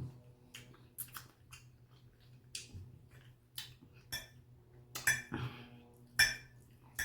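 Eating utensil clinking and scraping against a food container while picking through chow mein: a scattered series of sharp clicks and taps, the loudest about six seconds in.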